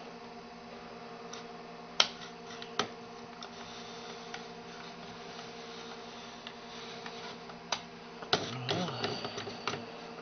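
Mouse button clicks on a Macintosh Plus while drawing in MacPaint: single clicks at about two and three seconds in, then a cluster of clicks with some rustling near the end. Under them runs a steady hum from the running computer and its hard drive.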